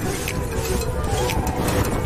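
Wind rush and tyre noise on a helmet-mounted camera as a BMX bike rolls fast over a paved track, a steady rough rumble.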